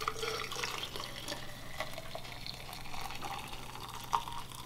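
Water poured from a stainless steel kettle into a stainless steel tumbler, a thin steady stream trickling in, with a light knock about four seconds in.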